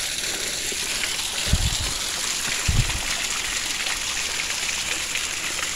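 Small waterfall rushing and splashing steadily, with two brief low thumps a little over a second apart near the middle.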